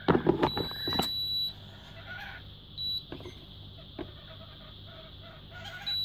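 Induction cooktop beeping: one long high beep about half a second in, then short beeps near three seconds and at the end. Hens cluck in the background, and there are a few knocks early on as the coil is handled on the glass top.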